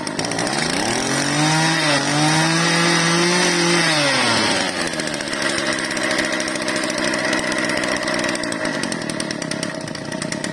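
Mitsubishi TBE24 brush cutter's 24cc two-stroke engine, revved by hand at the carburetor: it climbs to high revs about half a second in, holds there for about three seconds, then drops back and runs steadily at idle.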